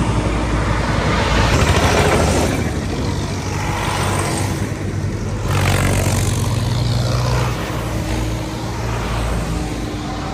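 Diesel farm tractor engines running as tractors drive past one after another. The engine hum swells about five and a half seconds in as a tractor passes close, then eases off.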